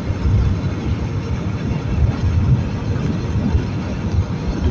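Motorcycle cruising at steady highway speed, around 80 km/h on a stock exhaust, heard mostly as a constant low wind-and-engine rumble buffeting the microphone.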